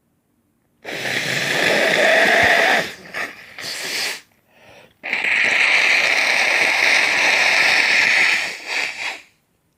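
A man blowing his pollen-congested nose hard into a tissue twice. Each is a long forceful honk, the second the longer, and each trails off in a few short sputtering puffs.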